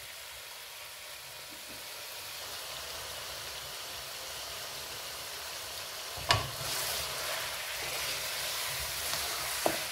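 Oil sizzling steadily in a karahi as raw bone-in chicken pieces fry and give off their water. A wooden spoon knocks the pan about six seconds in and starts stirring, and the sizzle grows louder, with another light knock near the end.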